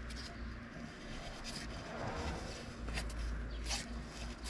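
Faint, scattered light clicks and rubbing as an outboard engine's flywheel is turned slowly by hand, over a steady low rumble.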